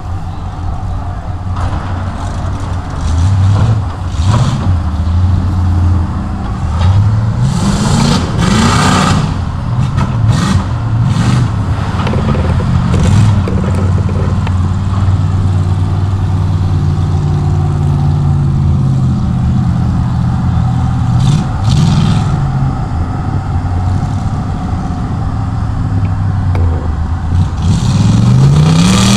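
Chevy mega truck's engine revving again and again, its pitch climbing and dropping as it churns through a mud pit. Several short rushes of hiss break in partway through.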